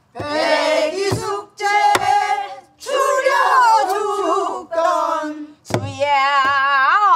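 A group of mixed voices sings a line of pansori together, repeating the teacher's phrase, with a few sharp strokes on a buk barrel drum. Near the end a single woman's voice sings the next phrase alone.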